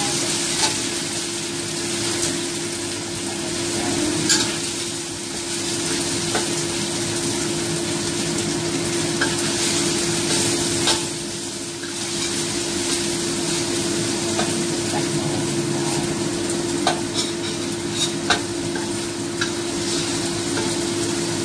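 Curry paste with shallots, garlic and ginger sizzling in a stainless steel wok while a spatula stirs it, with scattered clicks and scrapes of the spatula against the pan. A steady hum runs underneath.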